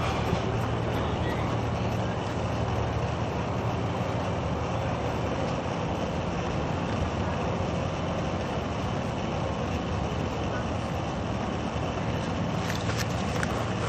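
Steady low rumble and hiss of outdoor background noise, with a faint low hum and no distinct events.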